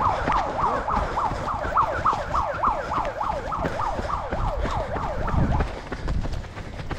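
A siren-like warbling tone, sweeping quickly up and down about three times a second, that stops a little over five seconds in.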